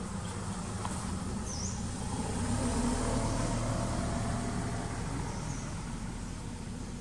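Outdoor background noise: a low rumble that grows louder around the middle and eases off, with two short high chirps, about one and a half and five and a half seconds in.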